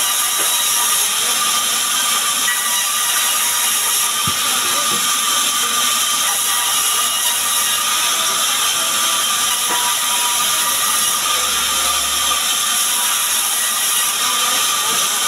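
Sawmill band saw running and ripping small sengon (albizia) timber into boards: a loud, steady hiss with a constant whine, holding an even level throughout.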